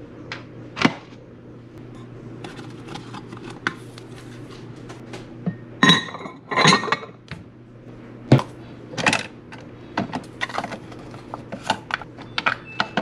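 A scatter of clinks and knocks from handling a ceramic mug, a glass jar of K-cup pods and a Keurig coffee maker, with a ringing glassy clink about six seconds in. A low steady hum runs underneath.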